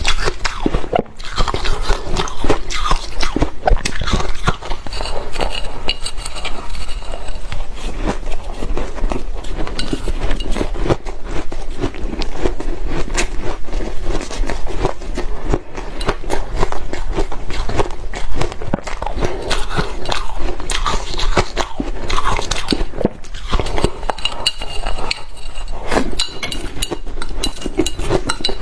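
Shaved ice being bitten and chewed close to the microphone, a dense, continuous run of crunches and crackles.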